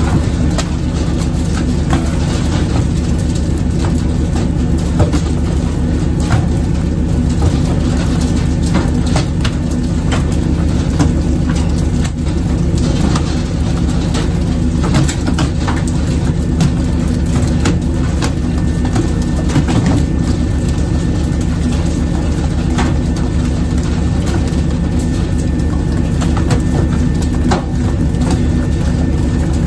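A fishing boat's diesel engine running steadily with a low hum, under scattered irregular knocks and slaps of skipjack tuna being flung aboard and landing on the deck.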